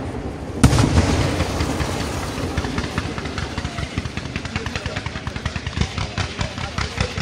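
Fireworks going off: one sharp bang about half a second in, then a rapid, irregular popping of many small reports that grows denser through the rest.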